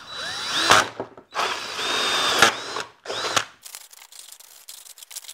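DeWalt cordless drill with a hole saw boring through the bottom of a vinyl gutter, in three bursts. Each time the motor whine rises as it spins up and the teeth grind through the plastic. Faint clicks of plastic being handled follow near the end.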